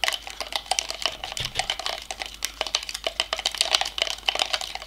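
A plastic cup of non-alcoholic beer, ice cubes and mint syrup swirled by hand to mix it: a rapid run of small, irregular clicks and crackles.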